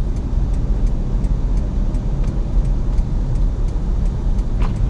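Steady low rumble of a car driving on a snowy city road, the engine and tyre noise heard from inside the cabin, with faint even ticking two or three times a second.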